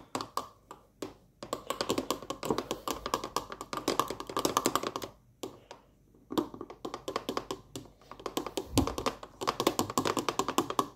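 Small metal fork whisking pancake batter in a cup, its tines clicking rapidly against the cup's sides as blue food colouring is mixed in. The fast clicking comes in runs, stopping for about a second midway.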